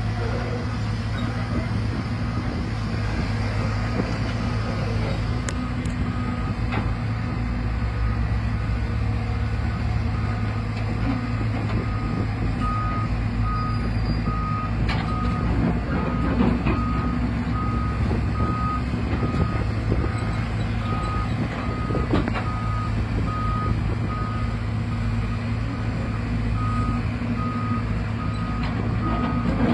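Excavator's diesel engine running steadily, with its warning alarm beeping at an even pace, most clearly in the second half, and a few short knocks.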